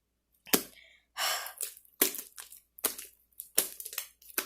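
Stiff, sticky glue slime, thickened with activator, being kneaded and pulled by hand, giving a string of sharp pops and cracks, roughly two a second, with a longer crackling tear about a second in.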